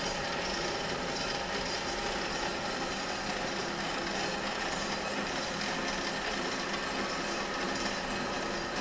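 Centre lathe running steadily, a workpiece turning in the chuck while the cutting tool is fed into it by hand at the carriage and cross-slide handwheels. An even mechanical hum with a few faint steady tones.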